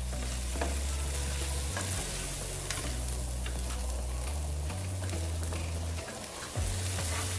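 Chopped vegetables (okra, pumpkin, carrot, tomato) sizzling in butter in a non-stick frying pan, stirred with a wooden spoon, with light scrapes and ticks against the pan.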